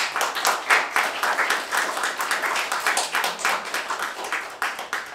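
Audience applauding: a dense patter of hand claps that thins out and fades near the end.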